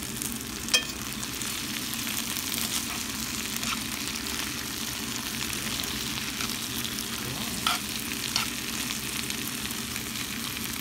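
Sliced potatoes and onions frying in coconut oil in a pan, a steady sizzle and crackle. A few sharp knocks sound over it, the loudest about a second in and two more near the end.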